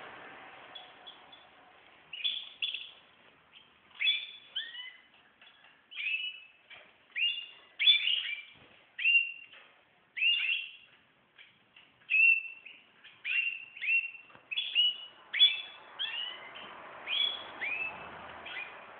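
Small cage bird chirping: short high chirps in quick clusters, about one cluster a second, starting about two seconds in and running on steadily, some notes sliding in pitch.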